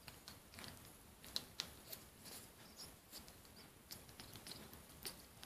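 Faint, soft clicking from a Congo African grey parrot, with a couple of brief high peeps about a second and a half in.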